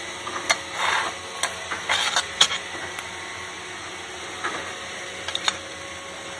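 Plastic shell of a BMW diamond key being handled and pried apart with a thin metal blade: scattered clicks and short scrapes of metal on hard plastic, bunched in the first couple of seconds and again near the end, over a steady faint hum.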